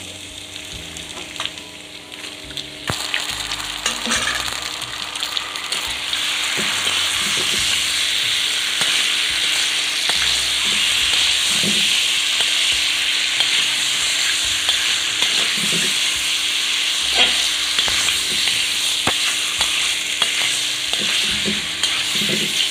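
Marinated chicken pieces sizzling in hot mustard oil with fried onions in a kadai, stirred and turned with a metal spatula that scrapes the pan now and then: the start of browning (kosha) the chicken. The sizzle swells about three seconds in and grows louder again around six seconds, then holds steady.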